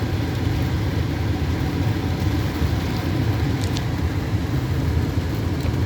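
Steady low rumble with an even hiss over it and no clear events.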